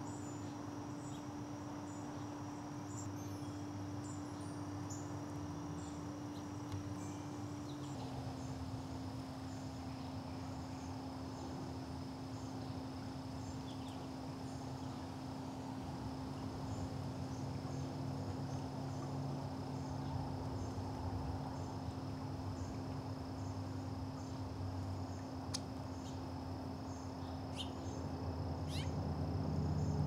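Backyard ambience: a steady low hum under faint, regular high-pitched insect chirping, with a couple of sharp ticks near the end. The hum drops slightly in pitch about eight seconds in.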